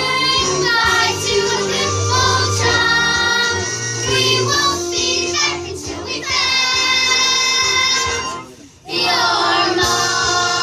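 Stage-musical cast singing a song with instrumental accompaniment, several voices together. The music breaks off for about half a second about eight and a half seconds in, then comes back.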